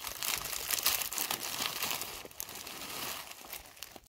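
Plastic freezer bag of frozen peas crinkling as it is tipped and shaken to pour the peas out. Many small ticks run through it, and it tapers off near the end.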